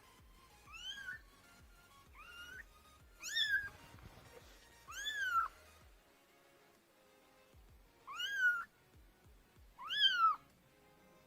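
Kittens meowing for their mother: six short, high-pitched calls, each rising and then falling in pitch, one to two seconds apart, with a pause of about two seconds midway.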